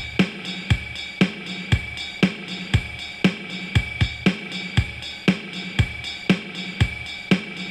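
Background music: electric guitar (a 1973 Gibson L6-S through a Fender Hot Rod Deluxe amp) over a keyboard drum-machine beat, with drum hits about twice a second.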